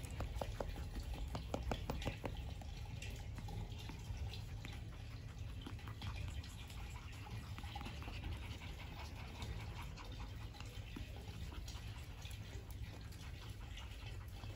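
Young puppies play-fighting and mouthing each other: a quick run of short yips in the first two seconds or so, then quieter scuffling.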